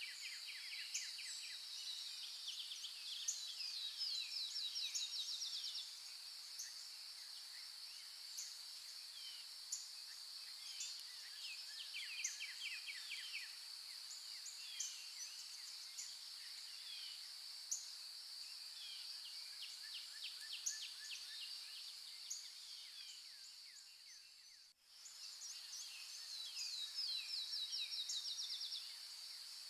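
Outdoor nature soundscape: several birds chirping and singing rapid trills of short falling notes over a steady high-pitched insect drone. The whole sound fades out and straight back in once, about 25 seconds in.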